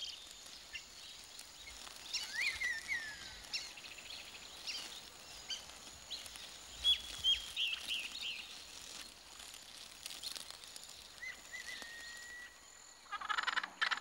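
Birds chirping and whistling in the bush: scattered short high chirps and a few falling notes over a faint hiss, with a held whistle later and a rapid chattering call near the end.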